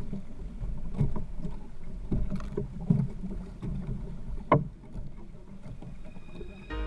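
Sea water sloshing around a small outrigger fishing boat while a handline is worked, with a few sharp knocks of gear against the hull.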